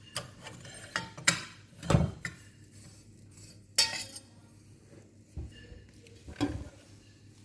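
Spoon clinking and scraping against a container while mixing, a handful of sharp clinks at uneven intervals with quieter scraping between.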